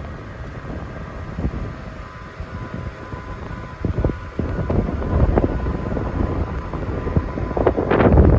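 Gusty wind buffeting the microphone as a storm blows in, a rumbling roar that rises and falls, with a strong gust near the end.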